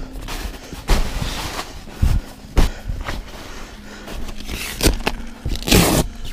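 Nylon fabric of a pop-up ice fishing shelter rustling as it is handled, with several dull thumps and a louder rustle near the end.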